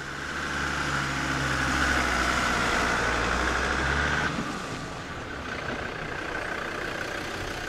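Motorboat engine running steadily. About four seconds in it cuts off abruptly and gives way to a quieter car engine running as a vehicle drives up.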